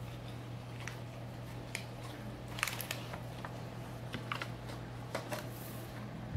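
Snack packaging crinkling and rustling in the hands in short irregular crackles over a steady low hum.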